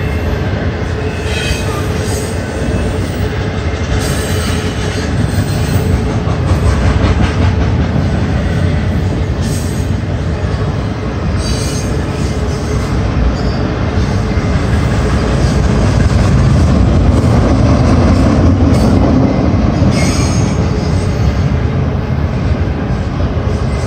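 Freight train's double-stack container well cars rolling past a grade crossing: a steady, loud rumble of steel wheels on rail. A thin wheel squeal runs through the first several seconds, and scattered clanks come from the cars and rail joints.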